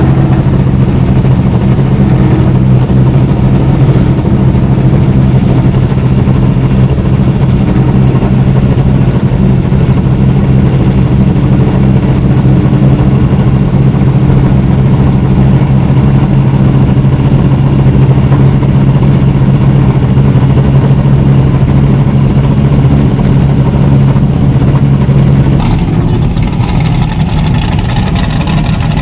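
Loud, steady running of historic 1970s–80s racing car engines. About 26 seconds in, the sound changes and settles on higher tones.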